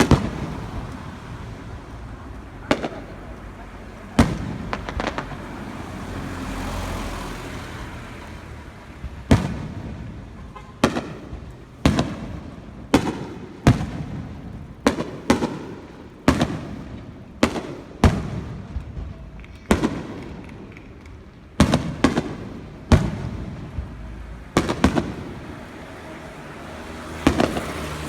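Aerial fireworks shells bursting: about twenty sharp booms in an irregular series, each followed by a rolling echo, coming thickest through the middle of the stretch.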